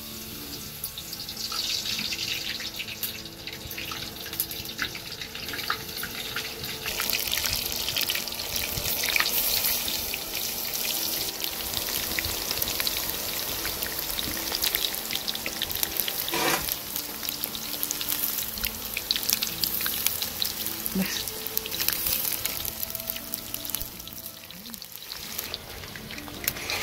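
Skewered potato slices deep-frying in hot oil in a large wok: a steady sizzle full of fine crackles and pops.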